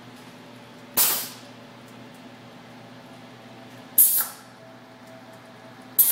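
Pneumatic actuators on a pallet-conveyor station firing three times, each with a short, sharp hiss of exhaust air: about a second in, again about three seconds later, and at the very end. A steady low hum runs underneath.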